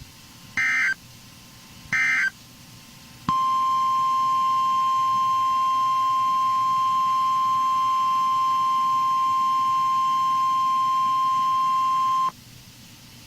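Two short, buzzy digital data bursts of the EAS Specific Area Message Encoding code, then a steady NOAA Weather Radio warning alarm tone at about 1050 Hz. The tone starts about three seconds in, holds for about nine seconds and cuts off sharply. It is the signal that a warning is being broadcast.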